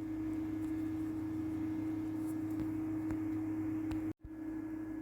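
Steady electrical hum with a constant low tone under faint hiss, cutting out completely for a split second about four seconds in, then resuming.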